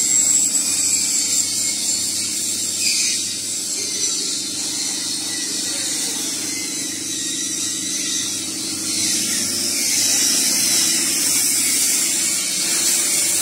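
Steady workshop machine noise: a continuous high hiss over a low hum.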